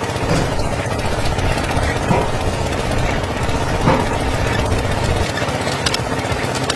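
Small motor of a miniature DIY borewell drilling machine running steadily with a fast, even rattle.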